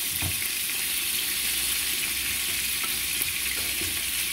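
Seared chicken pieces sizzling in hot oil in a frying pan: a steady frying hiss.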